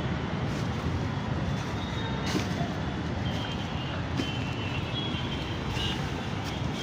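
Steady low outdoor rumble, with a few short high chirps or squeaks coming and going.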